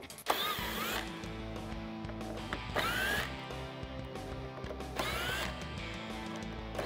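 Cordless power tool running in four short bursts, each a rising whine as the motor spins up.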